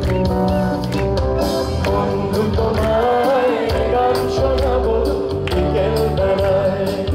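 Bengali rock band playing live: a lead singer holds a wavering sung melody over drum kit and electric guitar.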